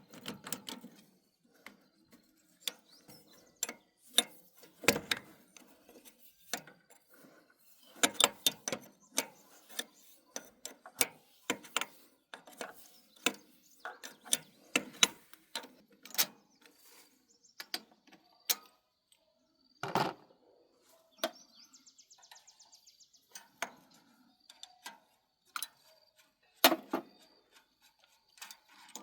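Hand tools and metal parts being worked during a plow engine repair: irregular sharp metallic clicks and knocks, with a short run of rapid even clicking about three-quarters of the way through.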